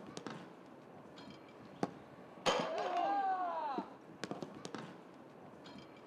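Footballs kicked on a grass training pitch: sharp thuds of boots striking the ball, the loudest about two and a half seconds in, at once followed by a player's drawn-out shout that rises and falls in pitch. A quick run of lighter ball touches follows later.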